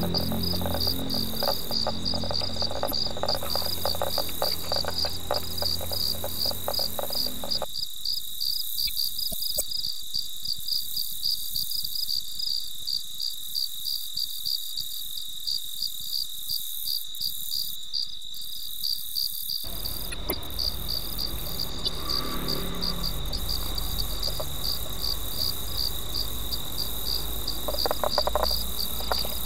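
Crickets chirping at night: a steady, high-pitched pulsing trill throughout, over a low rumble that drops out for about twelve seconds in the middle.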